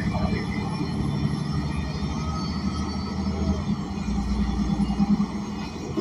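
ENC Axess bus running, heard inside the cabin: the Cummins Westport L9N natural-gas engine and road noise make a steady low rumble, and the deepest part grows stronger about four seconds in.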